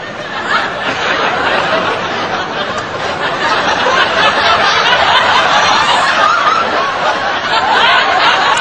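Audience laughter: many people chuckling and giggling together, swelling and easing without a break.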